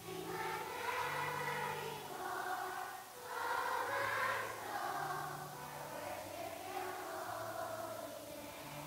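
Schoolchildren singing together as a choir, over low held accompaniment notes that change every second or two.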